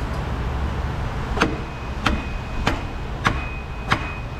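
Dead blow rubber mallet striking five times at an even pace, about every two-thirds of a second, starting about a second and a half in, knocking a front differential up into its mounts.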